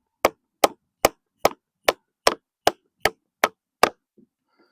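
Mallet striking a chisel into a log, ten sharp even blows at about two and a half a second, stopping near the end: roughing out a timber-frame joint.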